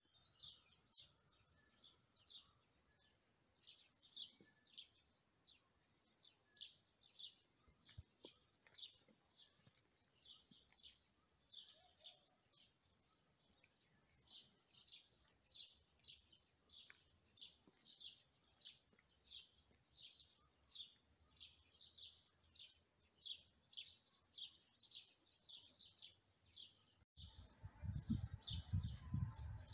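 A small bird chirping one short high call over and over, about two to three chirps a second. Near the end a low, fluctuating rumble comes in under the chirps.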